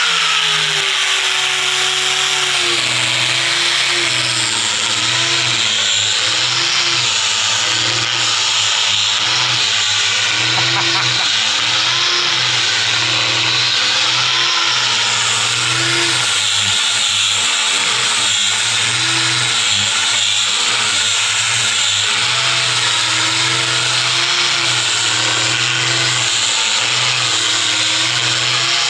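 Electric power sander running steadily on a trembesi wood door panel: a motor hum whose pitch wavers about once a second under a broad sanding hiss.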